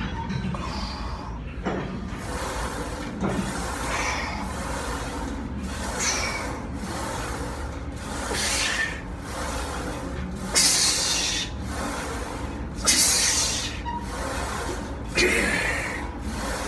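Forceful, hissing breaths of a man doing repeated barbell squats, one breath with each rep, the last three loudest.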